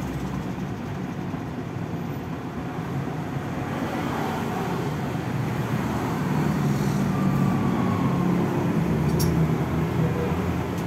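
Motor vehicle engine running steadily under road noise, its hum growing louder in the second half.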